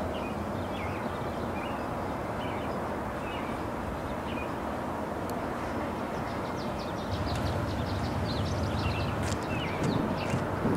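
Steady outdoor rumble that grows louder about seven seconds in, with small birds chirping faintly over it, more busily in the second half.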